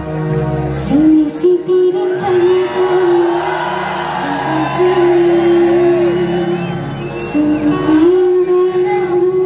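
Live band music with a female singer, several long held notes over the band, and cheers from the crowd.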